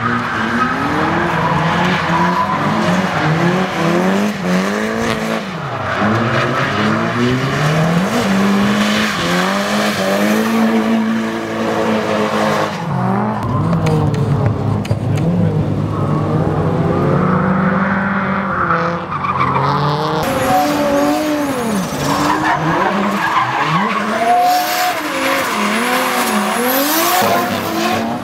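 Drift car engines revving hard and falling back again and again, with tyres screeching and skidding through long slides.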